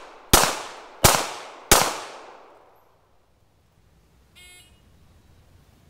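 Smith & Wesson M&P9 2.0 9mm pistol firing three shots about 0.7 s apart, each ringing out briefly, the last of a four-round string. About 4.5 s in comes a short electronic beep from a shot timer marking the end of the 5-second time limit.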